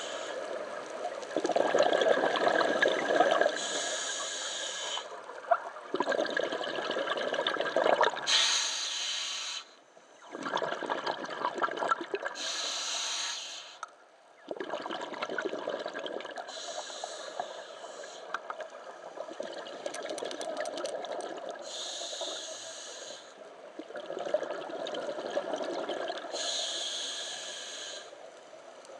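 A diver breathing underwater, with a burst of exhaled bubbles about every four to five seconds, six times, over a steady rushing hiss.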